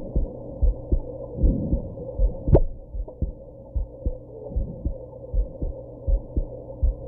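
A human heartbeat, heard as regular low thumps at about two and a half a second, with one sharper, louder thump about two and a half seconds in.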